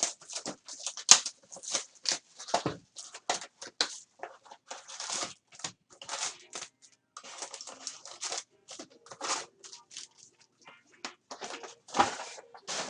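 Foil trading-card pack wrappers crinkling and cards being handled: a rapid, irregular run of clicks and crackles, with a few longer stretches of crinkling.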